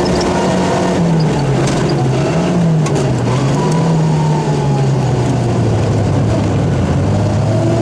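Rally car engine heard from inside the cabin, running hard under load, its note dipping about a second in, rising briefly, then falling slowly through the second half as the car eases off. A few sharp ticks sound over it.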